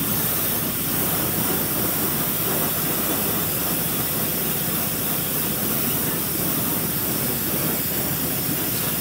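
Water jetting from a garden hose pistol spray nozzle onto a car wheel and tyre, rinsing it: a steady hiss of spray.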